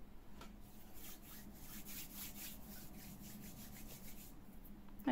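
A hand rubbing and smoothing a crocheted cotton panel flat on a tabletop: faint, even strokes, about four a second, that stop shortly before the end.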